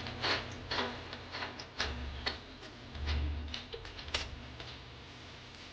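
Irregular light clicks and taps of kitchen handling, with a few dull low thumps in the first half; it gets quieter near the end.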